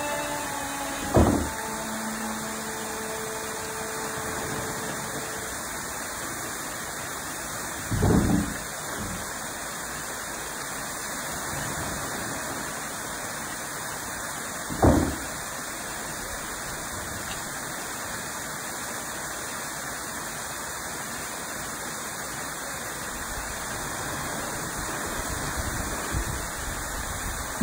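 A stream rushing over a weir, with a loud thud three times, about seven seconds apart: the water-driven kara-usu pestles tipping and dropping onto the clay they crush into fine powder for Onta ware.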